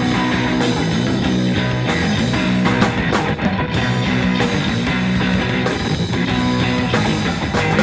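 Live punk-rock band playing loud, with heavily distorted electric guitar.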